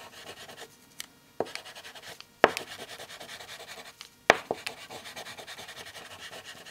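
Tip of a milk chocolate bar rubbed over drawing paper in quick, repeated shading strokes: a soft scratchy rasp, with a few sharp ticks where the bar strikes the paper.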